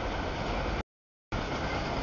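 Rumble and rush of a passing freight train, heard in short snippets about a second long that start and stop abruptly, with dead silence between them.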